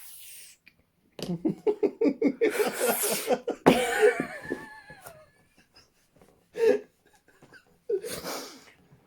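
A person laughing hard in a quick run of pulsed bursts, breaking into a breathy, higher-pitched laugh about halfway through, then a few shorter laughs and breaths near the end.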